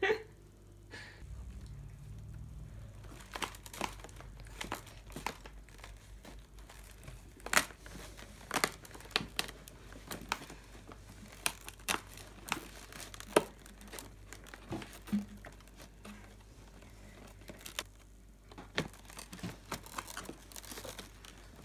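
Cardboard crinkling and tearing as a door of an L.O.L. Surprise! advent calendar is picked open by hand, in irregular sharp crackles and snaps.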